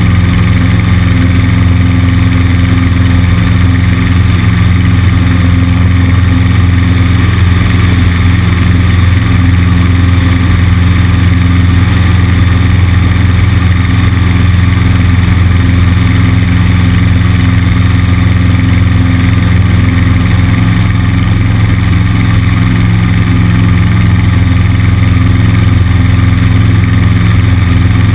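Cessna 150's Continental O-200 four-cylinder engine and propeller running steadily at constant power, heard from a camera on the wing.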